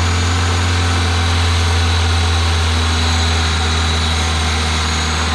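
Toyota Celica's freshly rebuilt 1ZZ-FE 1.8-litre four-cylinder engine running at a steady idle, just after its first start following the rebuild.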